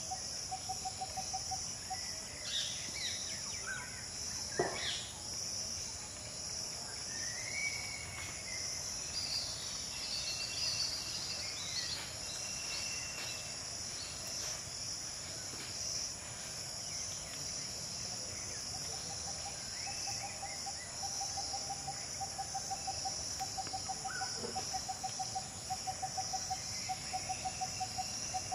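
Outdoor nature ambience: a steady high-pitched insect chorus, with scattered short bird chirps and whistles. A single sharp tap about four and a half seconds in, and a low call repeated about twice a second at the start and again through the last third.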